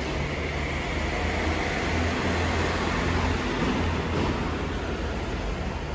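Steady low machine hum in an enclosed bus terminal, even in level throughout.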